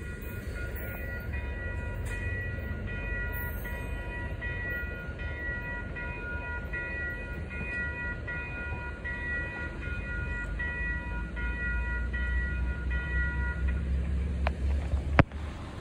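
Grade-crossing warning bell ringing in steady repeated pulses over the low rumble of a commuter train moving away down the line; the bell stops about fourteen seconds in. A sharp knock sounds just before the end.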